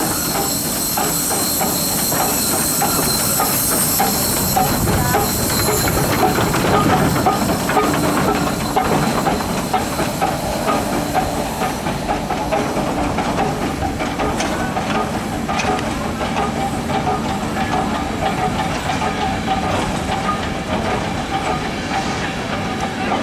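Achenseebahn steam locomotive No. 2, a small metre-gauge rack-railway tank engine, running slowly: steam hissing with quiet rhythmic exhaust beats and wheels clicking on the rails. The loudest hiss dies away about six seconds in.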